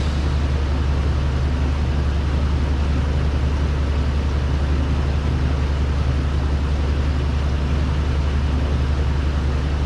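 GMC Sierra 2500HD pickup engine idling steadily with an even low hum, running after its power steering overhaul.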